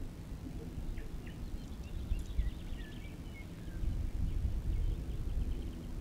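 Outdoor ambience: a low rumble that grows louder about four seconds in, with faint bird chirps and twitters above it.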